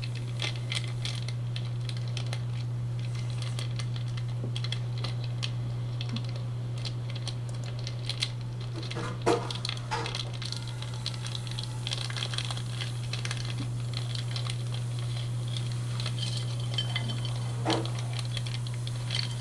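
Steady low electrical hum on the recording with many scattered light clicks and ticks. Short vocal sounds break in about nine seconds in and again near the end.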